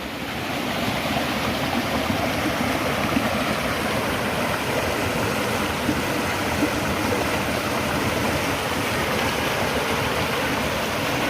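Mountain stream water rushing over rocks, a steady rush that swells in about half a second and then holds.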